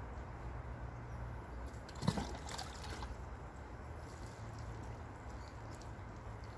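Water pouring from a plastic watering can and trickling onto loose soil, over a steady low hum. A single sharp knock about two seconds in is the loudest sound.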